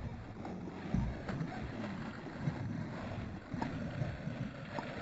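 A hooked pike splashing at the surface beside the boat, under an uneven low rumble of wind on the microphone, with scattered small ticks and knocks.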